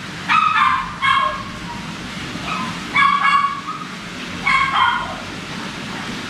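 Newborn puppy crying in repeated high-pitched yelps, in short bouts about every one to two seconds, while a thread is tied tight around its tail to dock it.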